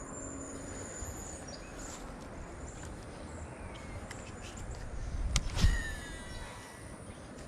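Steady outdoor background noise, with a sharp click and a brief low thump about five and a half seconds in, followed by a short falling whine.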